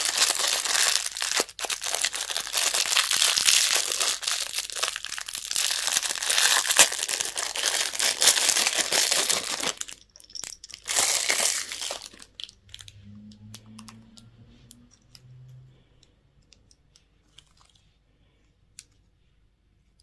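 Candy packaging wrapper crinkling and tearing as it is opened, dense and continuous for about ten seconds, then one shorter burst. After that, only faint clicks and taps.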